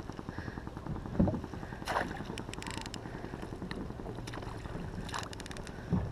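A hooked snook being reeled in toward a pedal kayak: a steady low rumble with fast flutter from the fishing reel and water, a few sharp clicks, and two low thuds, about a second in and near the end.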